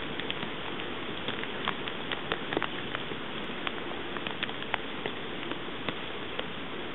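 Rain falling steadily, with frequent irregular sharp ticks of single drops striking close by.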